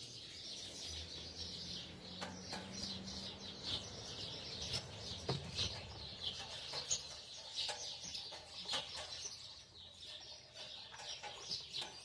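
Small songbirds chirping and twittering without a break, many short high calls overlapping, with a few light clicks in between.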